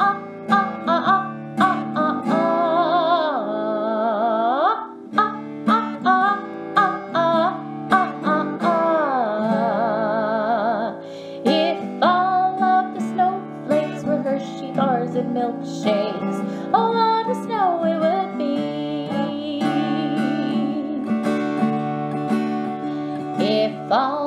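Strummed acoustic guitar accompanying a children's song, with a singer holding several long, wavering "ah" vowels.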